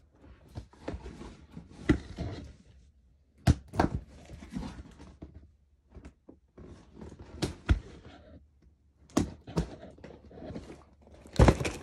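Cardboard box being opened by hand: rustling and scraping of cardboard with irregular thunks and sharp knocks, the loudest near the end.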